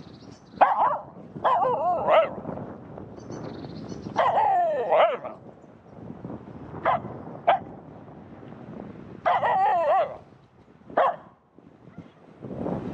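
Finnish Spitz barking in a series. Some barks are drawn out and waver in pitch, and others are short and sharp.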